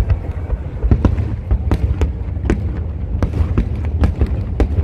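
Aerial fireworks shells bursting: an irregular series of about a dozen sharp bangs over a continuous low rumble.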